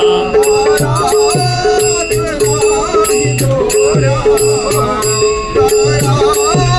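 Music between sung lines of a Marathi devotional song in raga Bhairavi: a bending melodic line over a steady held drone note, with regular rattling percussion and low drum beats.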